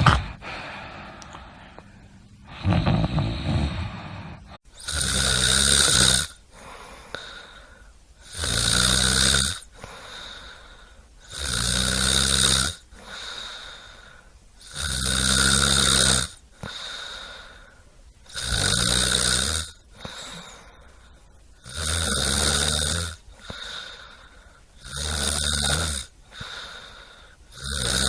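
A sleeper snoring: loud, rattling snores on the in-breath, each about a second and a half long, coming steadily about every three seconds, with a quieter breath out between. One snore of a different character comes before a sudden break about four and a half seconds in, where the steady series begins.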